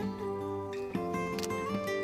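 Background music: gentle plucked guitar-like instrumental with held notes.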